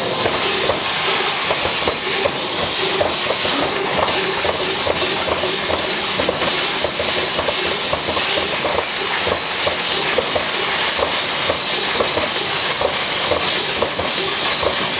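TRUMPF CNC laser cutting machine cutting steel: a steady loud hiss with rapid, irregular crackling running through it.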